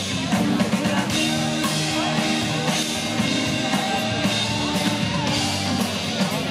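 A rock band playing live: electric guitar, bass guitar and drum kit, with a singer on a handheld microphone.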